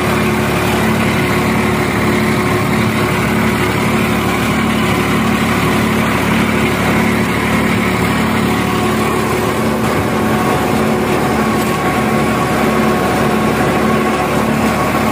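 New Holland 3510 tractor's three-cylinder diesel engine running steadily under load as it drives a 10-foot Shaktiman rotavator tilling soil; it runs easily, without labouring.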